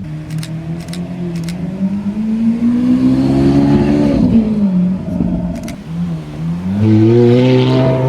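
A sports car engine revving: the pitch climbs steadily for a couple of seconds, falls back, then rises again near the end and is held high.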